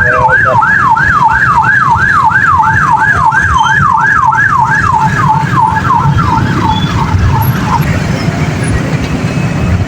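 Railway level-crossing warning siren sounding a fast, repeating wail of about three sweeps a second, which stops suddenly near the end, over a steady low rumble.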